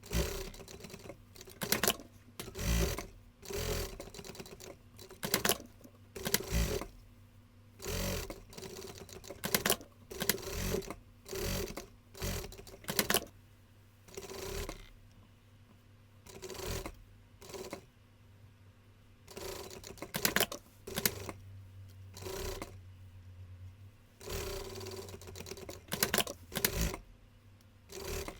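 Sewing machine running in many short bursts, starting and stopping every second or so, as fabric is fed through in short stretches.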